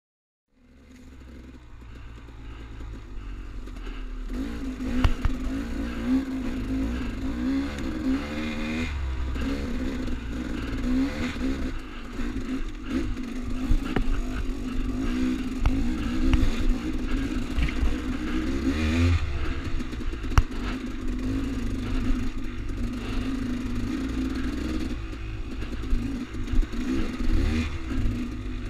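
KTM dirt bike engine running on a rocky trail, its pitch rising and falling as the throttle is worked, with scattered knocks and clatter. The sound fades in over the first few seconds.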